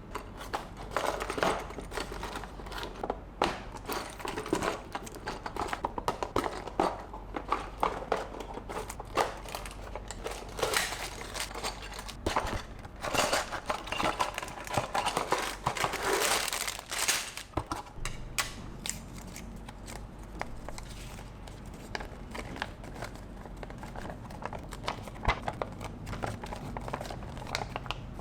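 Plastic packaging of a building-block set crinkling and rustling as it is handled, with many short sharp clicks. The handling is busy at first and quieter in the last third.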